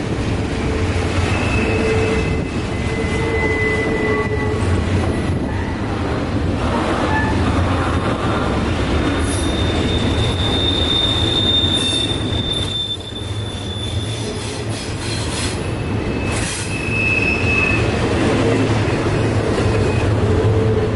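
Double-stack container train's well cars rolling past on a curve: a steady rumble of steel wheels on rail, with several spells of high-pitched wheel squeal, the longest through the middle.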